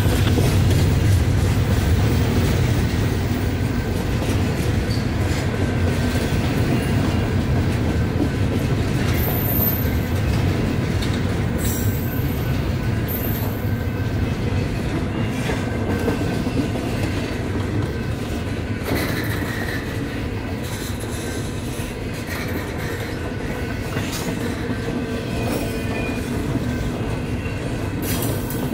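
Norfolk Southern freight train cars rolling past at speed: a steady rumble of steel wheels on rail, with faint wheel squeals coming and going.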